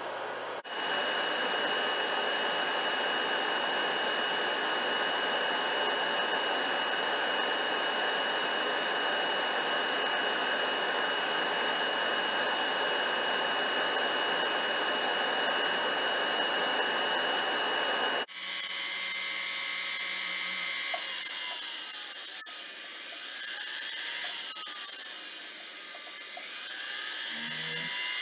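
Jeweler's gas torch hissing steadily with a thin high whistle during soldering, cutting off abruptly after about 18 seconds. Then a jeweler's rotary tool runs with a whine that rises and falls in pitch as the speed changes, finishing the soldered piece.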